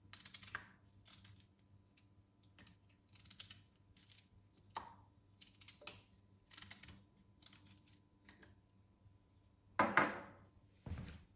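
Hands breaking an ingredient into small pieces over a saucepan of water: faint crackling and snapping in short bursts, with a louder knock about ten seconds in.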